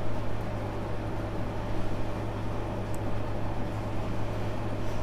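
A steady low hum with an even hiss over it, and a faint click about three seconds in.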